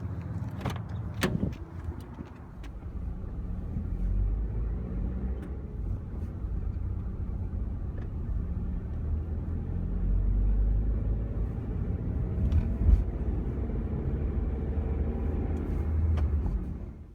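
Car driving, a steady low rumble of engine and road noise with a few sharp clicks about a second in.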